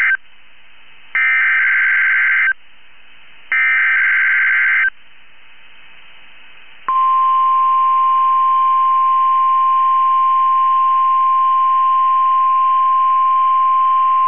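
NOAA Weather Radio SAME header: the tail of one digital data burst, then two more buzzy data bursts, each about a second and a half long and a second apart. About seven seconds in, the steady 1050 Hz weather radio alert tone starts and holds.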